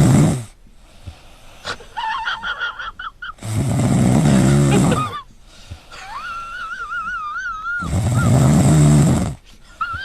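An animal snoring: a loud rasping snore three times, about four seconds apart, with a wavering whistle on the breaths in between.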